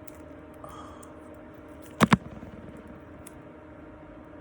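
Two sharp knocks in quick succession about two seconds in, over a steady faint hum.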